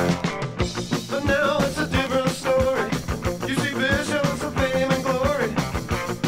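A 1979 power pop song played from a 7-inch 45 record: a rock band with drums on a steady beat and a sung lead vocal.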